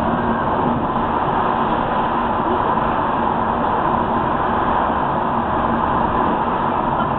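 Steady road and engine noise heard inside a moving car's cabin at motorway speed, tyres running on a wet road surface.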